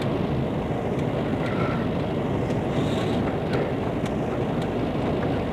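Steady low rumbling background noise with faint ticks scattered through it.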